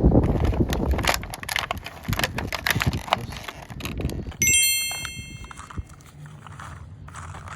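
Clicking and rustling of objects being handled, then a single bright bell-like ding about four and a half seconds in that rings out for about a second before fading, with light rustling after it.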